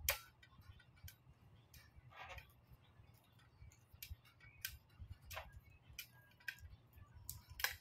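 Irregular light clicks and ticks from the fittings at the top of a tripod light stand as it is twisted and adjusted by hand, the sharpest click right at the start and another near the end.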